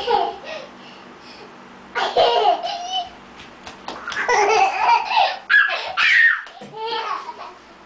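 Young children laughing in several high-pitched bursts, about two seconds in and again from about four to seven seconds.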